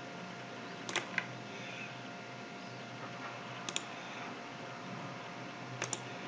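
Computer mouse clicking the chat's "next" button: three pairs of sharp clicks about two seconds apart, over a faint steady hum.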